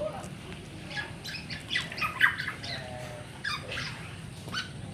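Black-naped oriole chicks calling: a string of short, harsh begging calls in quick succession, the loudest about two seconds in.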